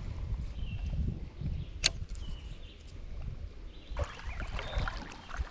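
Shallow river water sloshing and splashing around the legs of someone wading, with a sharp click about two seconds in and more splashing from about four seconds in.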